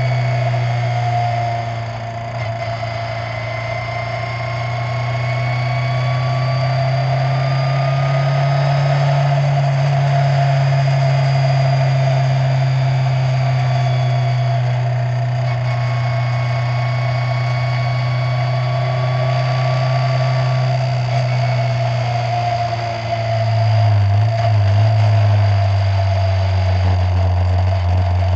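Skip Barber formula car's engine heard onboard, running at steady moderate revs. About two-thirds of the way through the revs drop to a lower, rougher note as the car slows.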